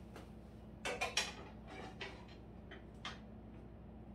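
A few light clicks and taps: a quick cluster about a second in, then single fainter ticks, over a low steady hum.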